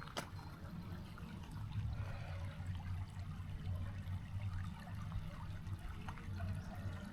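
Creek water flowing and trickling, faint and steady, under a low rumble.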